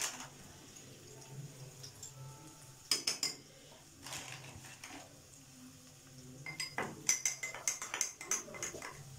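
A metal spoon clinking against a drinking glass: a few taps about three seconds in, then rapid repeated clinking from about six and a half seconds as cornflour is stirred into orange juice to make a batter.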